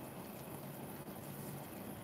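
Faint, steady whirring of fidget spinners turning on their ball bearings, under a low hum.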